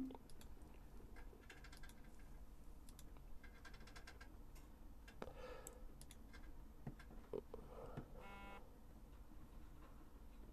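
Near silence: quiet room tone with faint, scattered small clicks and taps.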